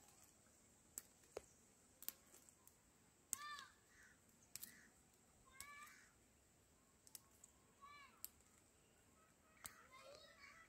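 Faint bird calls: short arched chirping notes, one every second or two at first, coming closer together near the end. A few small sharp clicks are scattered between them.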